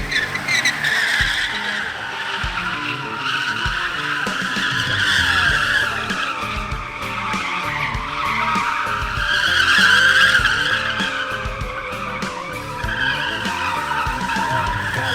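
Tyres squealing almost without break as a Toyota JZX drifts, the squeal wavering up and down in pitch and loudest about two-thirds of the way through, with the engine revving underneath.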